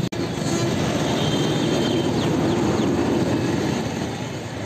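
Steady rushing of a river in heavy flood, fast floodwater running past the piers of a stone arch bridge.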